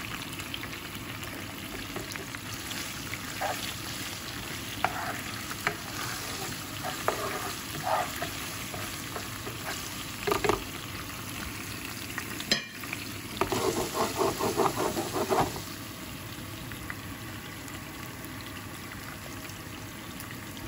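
Oil and whole spices (cumin seeds, garlic, dried red chillies, bay leaves) sizzling steadily in a non-stick frying pan on very low heat, a tadka being tempered. A plastic spoon stirs and scrapes against the pan now and then, with a quick run of taps a little past the middle.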